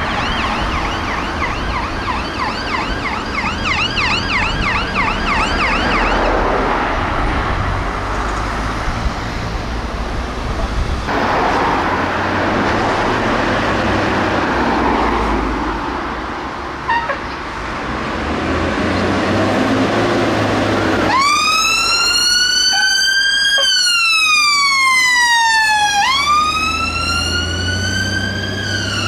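Fire engine sirens. At first a siren yelps rapidly in the distance over road traffic noise. About two-thirds of the way in, a Dennis fire engine's siren starts up loud and close, wailing slowly up and down in pitch as the engine drives past with its diesel engine running.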